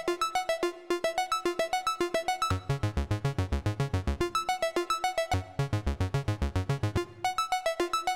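Eurorack modular synthesizer voice playing a fast sequence of short plucked notes, about six a second, clocked by a Tenderfoot Lattice 12-step sequencer. Lower bass notes join about two and a half seconds in. The pattern breaks off briefly a few times as keys on the Cells expander switch between banks of steps.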